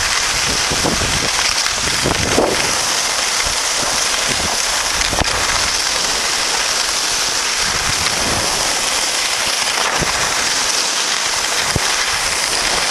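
Steady rushing noise of wind over the microphone of a camera carried by a downhill skier, mixed with the hiss of skis sliding over packed snow.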